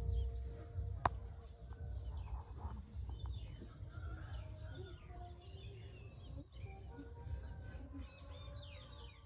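Small birds chirping in short, quick falling calls, over a low rumble on the microphone, with one sharp click about a second in.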